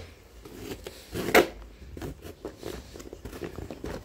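Knife blade cutting along the packing tape on a cardboard box: scratchy scraping strokes, with one louder sharp stroke about a second and a half in.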